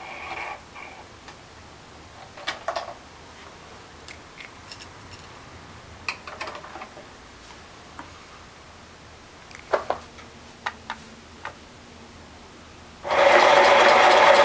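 Lil' Sew & Sew LSS505 desktop sewing machine: a few light clicks and handling knocks from working the machine, then about 13 seconds in its motor runs at a steady pitch for under two seconds as the foot pedal is pressed, and stops.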